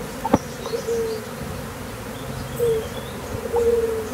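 A swarm of Asian honeybees (Apis cerana) buzzing in flight around their hive box, with single bees droning past close by in short, slightly falling tones. The colony has poured out of a box that the keeper takes to be too hot for lack of ventilation. A sharp click comes about a third of a second in.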